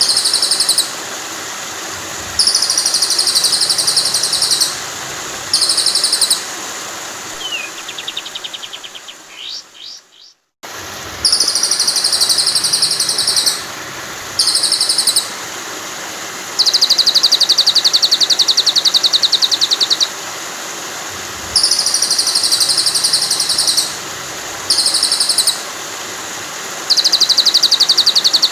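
Recorded songbird trills, rapid and high, repeated in bursts of one to three seconds over a steady wash of flowing water: a looped masteran track of song material for training white-rumped shamas. About ten seconds in, the sound fades to a moment of silence and the loop starts again.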